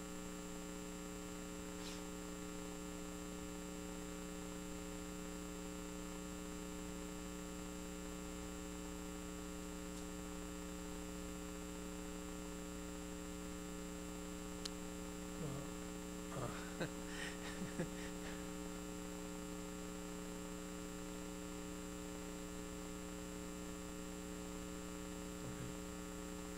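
Steady electrical mains hum from the hall's sound system, with a few faint short sounds about two-thirds of the way through.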